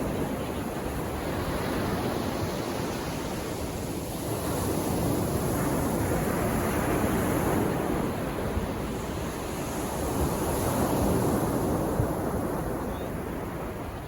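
Calm sea waves washing onto a sandy beach, the surf swelling and fading every few seconds.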